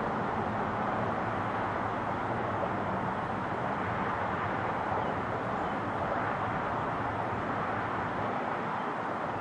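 Boeing 777's jet engines on final approach, heard from a distance as a steady rumble and hiss.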